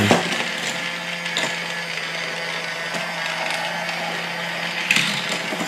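Thomas & Friends Minis Motorized Raceway toy train set running: its small motor makes a steady whirr with a low hum, and a few faint plastic clicks come from the track mechanism.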